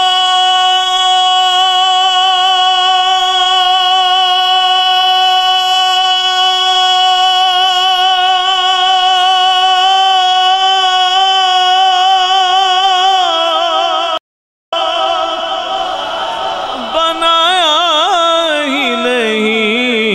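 A man's voice in naat recitation holding one long high note for about thirteen seconds. It cuts out for a moment, then breaks into a wavering run of ornamented notes that falls in pitch.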